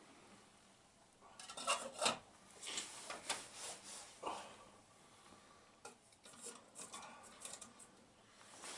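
Camping cookware being handled: scraping and rustling with light clinks of an aluminium pot and lid, in two irregular spells of activity.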